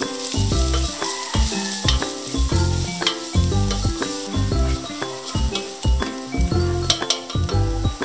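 Onion, ginger and lemongrass sizzling as they sauté in oil in a nonstick pot, with a spatula stirring and scraping now and then, at the stage where the aromatics are cooked until translucent. Background music with a bass line plays over it.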